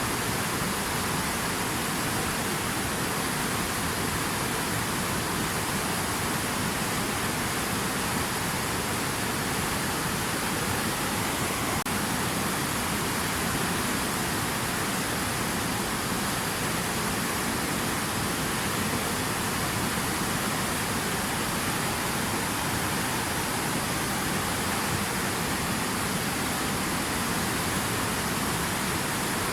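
Steady rushing water, an even unbroken hiss with no drops or splashes standing out.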